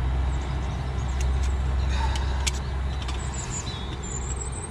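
Small backpacking canister gas stove burning turned up high, a steady low rush, with a few light metal clicks as a titanium pot is set on it. Faint bird chirps near the end.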